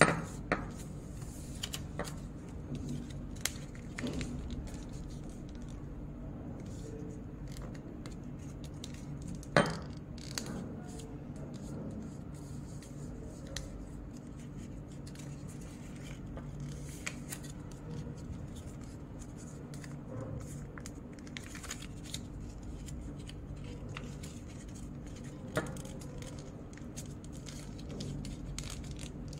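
A sheet of paper being folded and creased by hand on a wooden table: soft rustling and scraping, with a few sharp taps, the loudest right at the start and about ten seconds in, over a steady low hum.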